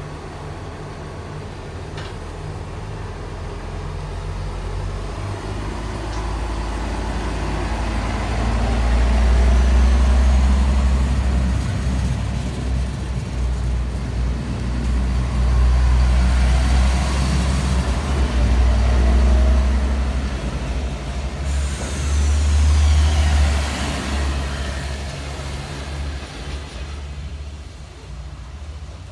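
A DB class 643 Talent diesel multiple unit pulls away from the platform, its diesel engines running up to a loud, deep rumble as it accelerates past. Several falling whistling tones come about two thirds of the way through, and the rumble fades as the train draws away.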